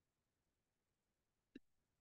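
Near silence, with one faint brief click about one and a half seconds in.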